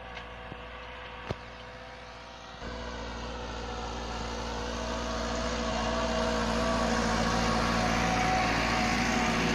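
Massey Ferguson 375 tractor's diesel engine running steadily while pulling a 16-disc offset disc harrow through dry soil. A few light clicks come in the first second or so. The engine gets louder after about two and a half seconds and keeps rising as it comes close.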